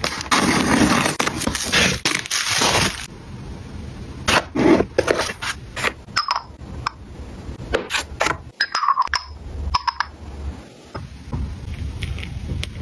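Makeup packaging handled up close: a dense crinkle of wrapping for about three seconds, then a run of sharp taps, clicks and light clinks of small containers being picked up and set down.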